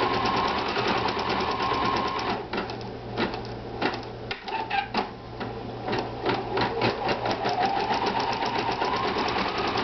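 Pfaff 2170 sewing and embroidery machine stitching an embroidery design: a fast, even run of needle strokes over a steady motor whine. About two and a half seconds in, the stitching slows to scattered separate clicks, then it picks up speed again around six seconds in.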